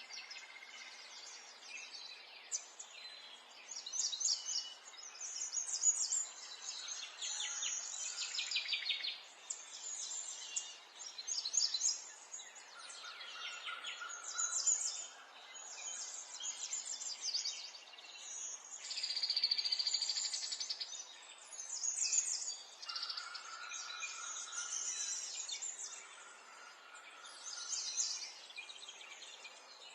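Several small songbirds chirping and trilling, one call over another, with short rapid trills and a few steady whistled notes, over faint background noise.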